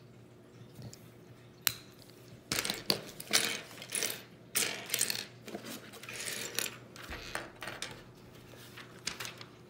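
Small plastic Lego pieces clicking and clattering against a hard tabletop as they are handled and shuffled about. One sharp click comes about a second and a half in, then a quick flurry of clatter for several seconds, tapering to a few light ticks.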